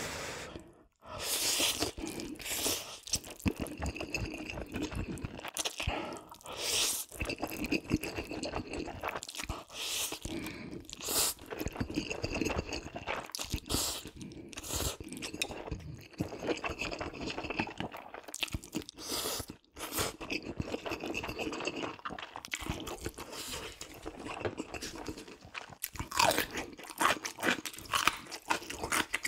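Close-miked eating: continuous chewing with repeated crunchy bites, growing denser and louder near the end.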